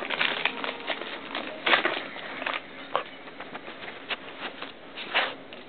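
Gift-wrapping paper crinkling and rustling in irregular short bursts as a dachshund tears and noses at a wrapped present. The crinkling is busiest in the first second or so, then comes in scattered crackles.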